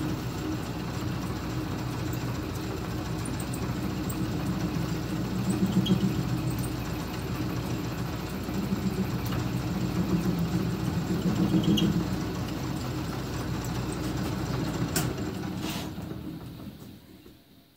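Small metal lathe running while turning a brass part down in diameter: a steady motor and gear hum with gentle swells as the tool cuts. Near the end there are two sharp clicks and the lathe is switched off and spins down to silence.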